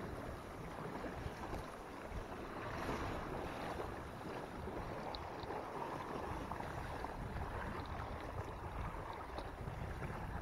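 Water rushing and splashing along the hull of a Wanderer sailing dinghy under way, with wind buffeting the microphone in an uneven low rumble.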